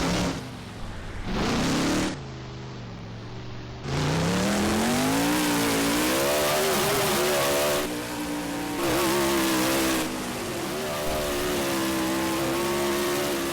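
Monster truck's supercharged V8 engine revving hard during a freestyle run, dropping away twice briefly in the first few seconds, then climbing in pitch and held at high revs with small surges.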